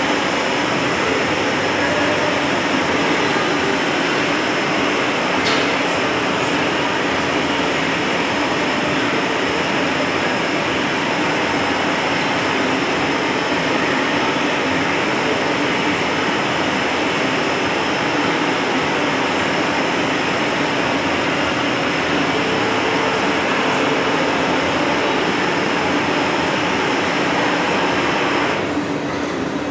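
Steady roar of a glassblowing hot shop's gas-fired glory holes and burners with their blowers and fans, carrying a faint constant high whine. The roar drops a little near the end.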